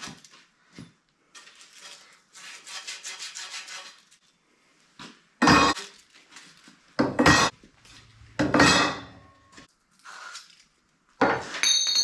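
Copper pipe being scrubbed clean with quick rubbing strokes before soldering, then copper pipes and fittings knocking and clinking against each other and the plywood board, the last clink ringing briefly.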